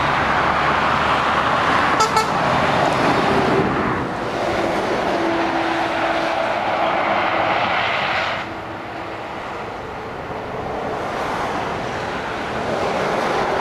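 Motorway traffic passing: the steady tyre and engine noise of lorries and cars, with a short sharp clatter about two seconds in. The noise drops off about eight seconds in, then builds again near the end as the next lorry approaches.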